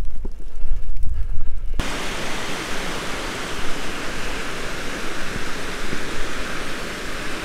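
Steady rush of falling water that starts abruptly about two seconds in, after a low rumble with a few soft knocks.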